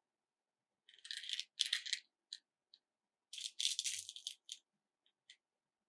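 Small plastic beads rattling and clicking in a clear plastic compartment tray as they are stirred and picked out. The clatter comes in two bursts, about a second in and about three and a half seconds in, followed by a few single clicks.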